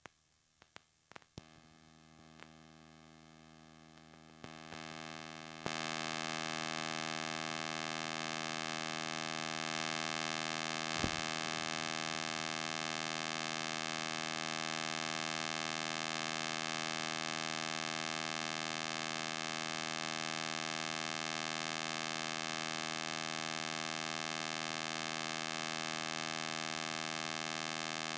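A few clicks, then a steady electrical buzz with many overtones that steps louder twice around five seconds in and holds level; a single knock about eleven seconds in.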